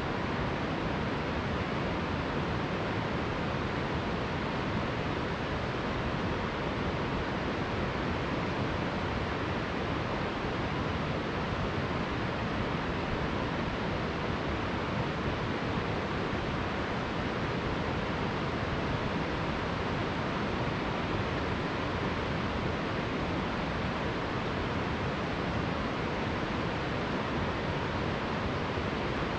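A steady, even rushing noise, wind-like, holding one level throughout with no gusts or separate events.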